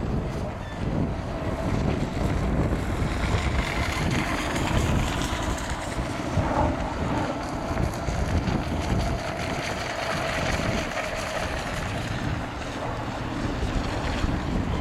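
Wind buffeting the microphone, with the faint steady whine of a radio-controlled model boat's motor under it, clearest midway.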